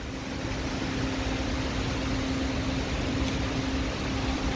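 Extraction fan running steadily: an even hiss with a constant low hum.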